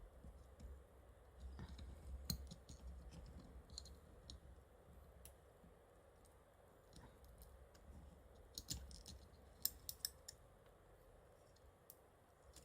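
Faint, scattered small clicks and taps of tools and fingers handling a smartphone's internals during disassembly, with a few clusters of sharper clicks.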